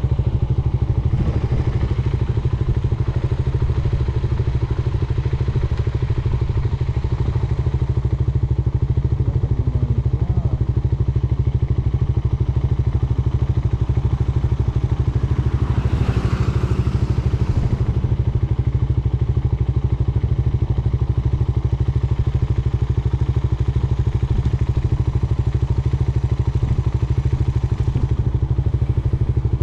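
Suzuki Raider R150 Fi motorcycle's single-cylinder four-stroke engine running at a steady speed, with no revving. A brief swell of louder, hissier noise comes about halfway through.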